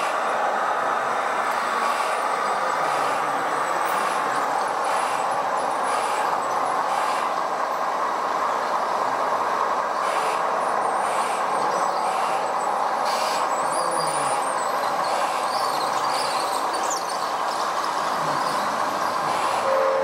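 Radio-controlled model construction machines running: a steady mechanical whirring from their drives and gears, with a few faint clicks.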